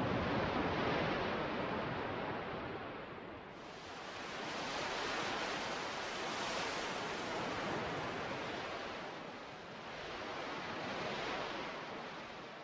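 Ocean surf: waves washing in and drawing back in slow swells, three surges over about twelve seconds.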